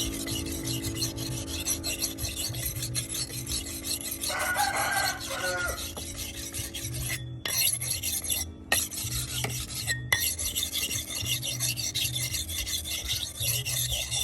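Repeated scraping strokes of hand filing, in an even back-and-forth rhythm over a steady low hum, with a rooster crowing about four seconds in.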